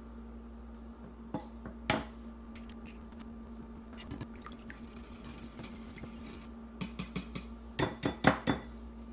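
A wire whisk clinks rapidly against a glass bowl in two short spells near the end as egg and milk are beaten together. Earlier come a few sharp knocks, the loudest about two seconds in, as an egg is cracked on the bowl.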